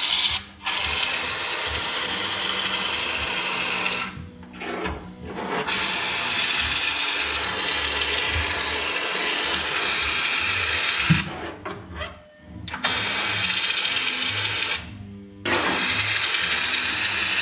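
Air-fed rust-proofing spray gun with a long extension tube hissing as it sprays rust treater into a body cavity. It comes in four long bursts with short pauses between them.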